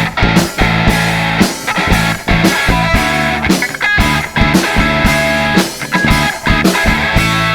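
A pop-punk band playing live: electric guitars and bass over a steady drum beat in an instrumental stretch of the song, before the vocals come in.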